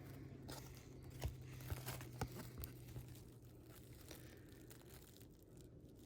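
Faint handling of paper trading cards and pack wrappers: a soft rustle with a few light clicks in the first few seconds as cards are shuffled and flicked.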